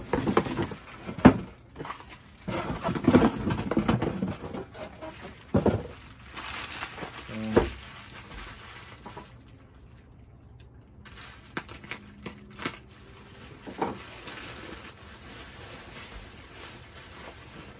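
Cardboard packing and bubble wrap being handled while a box is unpacked: rustling, crinkling and knocks, busiest in the first half, then a few scattered taps.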